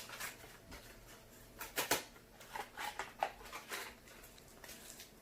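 Plastic snack wrapper crinkling and rustling in bursts as it is handled and pulled at, with a few sharper crackles about two seconds in.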